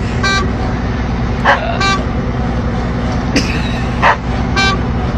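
Combine harvester's engine running with a steady low drone, while short tooting sounds repeat about every second and a half over it.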